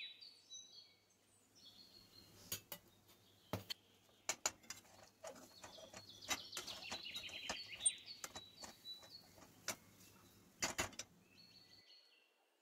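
Metal spatula knocking and scraping against a kadai as thick urad dal paste is stirred and mashed, a dozen or so sharp irregular clicks. A recorded birdsong effect chirps over it at the start and again in the middle, and a low hum runs under the clicks until near the end.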